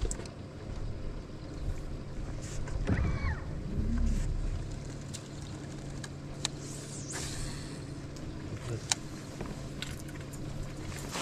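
Electric trolling motor on a bass boat humming steadily at low speed, with a few sharp clicks and knocks scattered through it.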